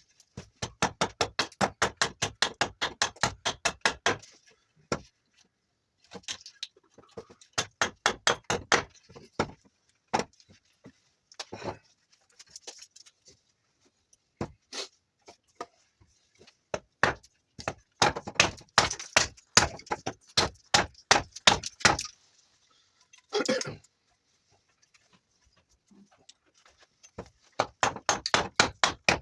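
Rapid runs of sharp cutting strokes of a blade into juniper wood, about five or six a second, in bursts of a few seconds with short pauses between.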